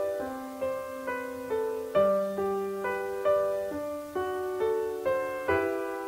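Background piano music: a slow melody of single struck notes, about two a second, each fading before the next.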